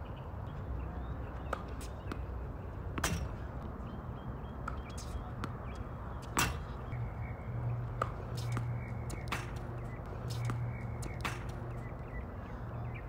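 Sharp pops of a tennis ball being bounced on a hard court and struck with rackets, about half a dozen at uneven intervals, the loudest about six seconds in, over a steady low hum.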